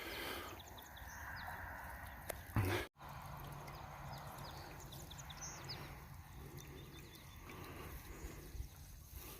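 Outdoor farm ambience with cattle nearby and faint, short high chirps, broken about three seconds in by a brief loud knock and a sudden cut.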